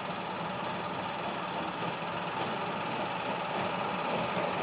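Narrow-gauge diesel locomotive running slowly as it approaches, its engine a steady low drone that grows slightly louder, with a few faint clicks near the end.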